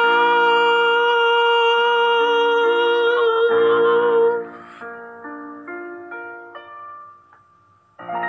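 A man's voice holding one long high sung note over piano chords. The voice stops about four seconds in, the piano plays a few more chords that die away, and a new chord sounds near the end.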